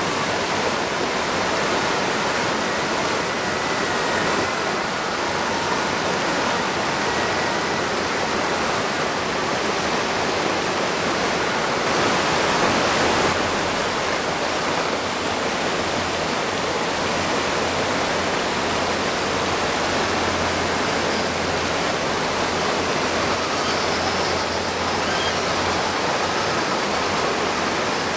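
River water rushing over rock ledges and a small cascade: a steady, even rush.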